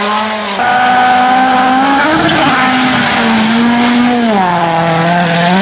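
Rally car engine running hard at high revs on a gravel stage, its pitch dipping and climbing again a few times as the driver lifts and shifts, over the hiss of tyres and spraying gravel.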